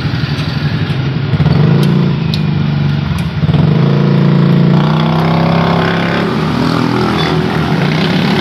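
A motor vehicle's engine running close by, steady and loud, its pitch shifting about three and a half seconds in.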